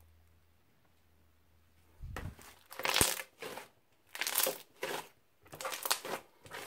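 Crunchy slime with beads mixed in being squeezed and kneaded by hand, crackling and crunching. It starts about two seconds in, with a squeeze about once a second.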